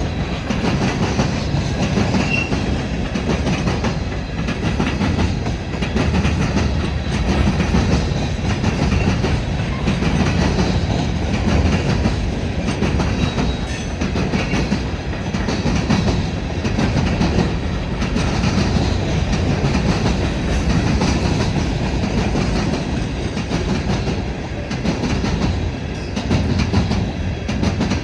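Empty cars of a BNSF unit rock train rolling past, their wheels clicking over the rails in a continuous rumble that swells and eases as each car goes by.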